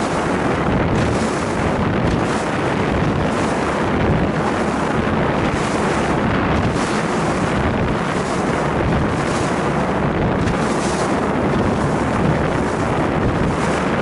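Steady loud rush of wind over the microphone on a Haines Hunter 520 Prowler running fast offshore, with the hull hissing through the water and spray surging about once a second as it meets the swell.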